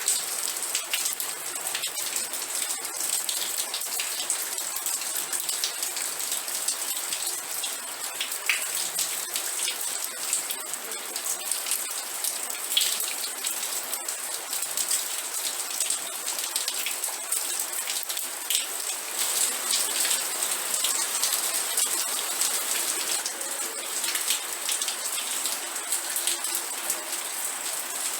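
Steady rain falling, with many separate drop hits.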